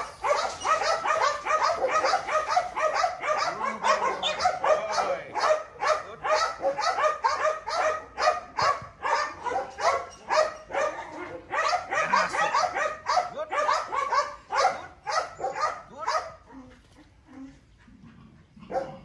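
A dog barking rapidly and without a break, about three barks a second, until it stops about sixteen seconds in.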